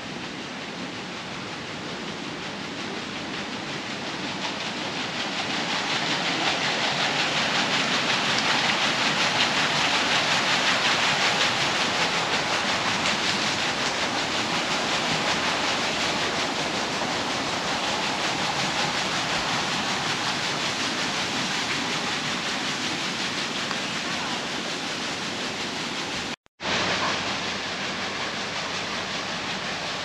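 Steady rush of water from a mountain waterfall, growing louder a few seconds in and then holding. It cuts out for a moment near the end and resumes a little quieter.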